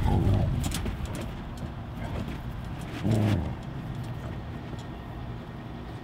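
Dogs growling at each other while play-fighting, a social growl rather than a real fight: one short growl right at the start and another about three seconds in, over a low steady rumble.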